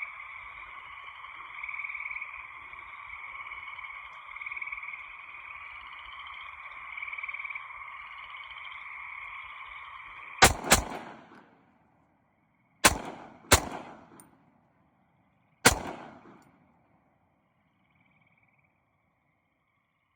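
Five gunshots fired at a wild hog: two quick pairs, then a single shot about two seconds later, each trailing off in an echo. Before the first shot a steady, pulsing night chorus of calling animals is heard; it falls silent after the shots.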